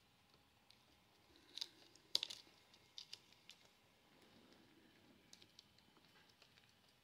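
Faint, sparse clicks and taps of plastic toy pieces being handled and fitted together, with a small cluster about two seconds in, the loudest of them.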